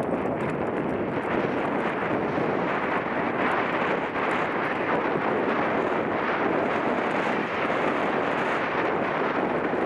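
Steady wind rush on a helmet-mounted camera's microphone while riding a mountain bike.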